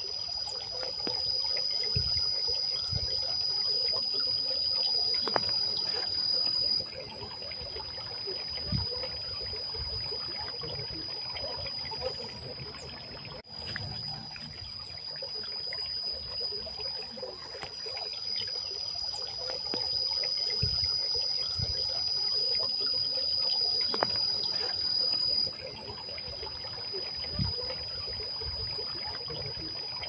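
Water trickling and splashing down the tiers of a stone garden fountain. A steady high insect drone runs over it.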